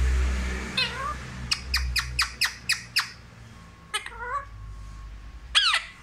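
A rose-ringed parakeet calling. One dipping-then-rising call is followed by a quick run of about seven short, sharp squawks, then two more calls, the last the loudest. A low rumble sits under the first couple of seconds.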